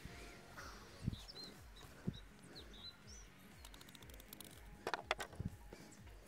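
Small birds chirping in the background, with a few soft knocks and a brief clatter about five seconds in from a melon being handled and pressed onto a wooden stand.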